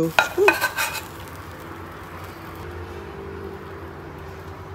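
A few quick clinks and scrapes of a spatula and frying pan against a ceramic plate as food is slid onto it, then a steady low hum.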